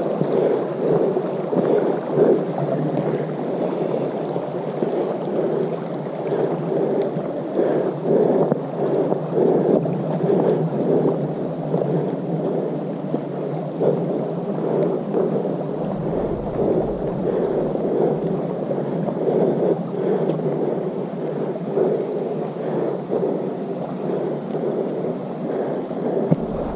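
Muffled footsteps on a dirt trail and the jostling of a camera carried while walking: dull thuds at a steady walking pace of about two a second over a constant rumble.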